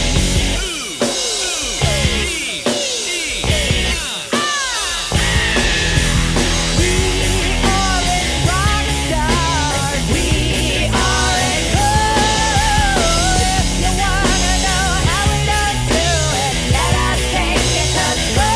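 Rock music played by a band with a drum kit. It opens with several notes sliding down in pitch over the first few seconds, then settles into a steady, driving beat with a melodic line over it.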